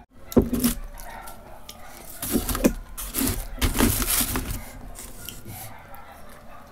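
Close-miked chewing and wet mouth sounds of someone eating roti with curry, in irregular bursts.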